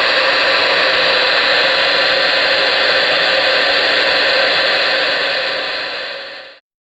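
Steady static hiss from the loudspeaker of a General HP40W ten-meter radio, receiving no signal after the answering station has unkeyed. It cuts off abruptly near the end.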